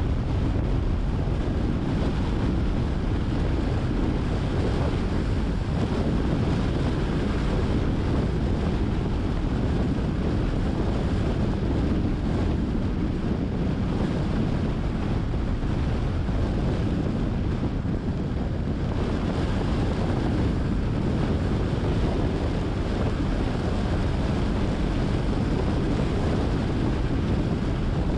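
Steady low rumble of wind buffeting a camera microphone on a moving car, mixed with road noise.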